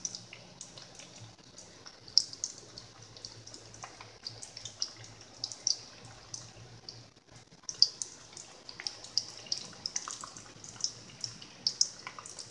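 Breaded croquettes frying in hot oil in a frying pan: the oil bubbles and crackles with many small, irregular pops, over a faint steady low hum.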